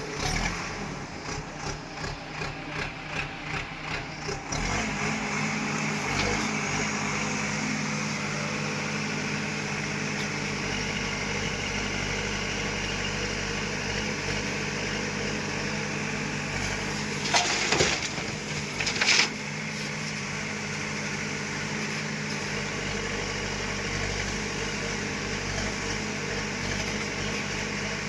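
A heavy diesel engine of a tractor or bulldozer running, chugging in pulses about twice a second at first, then settling into an even drone. Two loud clanks come a little over a second apart about two thirds of the way through.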